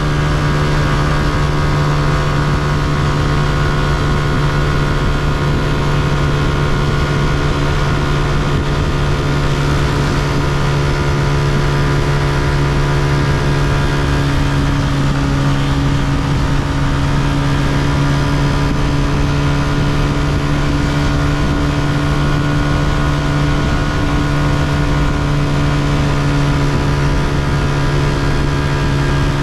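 Honda CG125's single-cylinder four-stroke engine running at a nearly constant speed under way, with a slight change in its note about halfway through.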